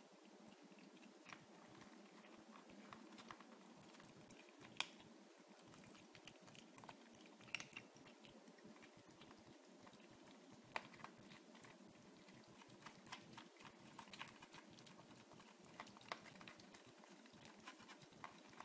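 Two kittens eating cat food from a plate: faint, irregular chewing clicks and smacks, a few of them sharper, against a low room hum.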